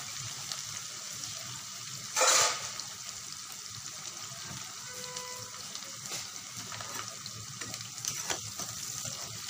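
Chopped onion and green chillies sizzling steadily in hot mustard oil in a frying pan, with one brief loud burst of noise about two seconds in. A few spatula clicks near the end as the pan is stirred.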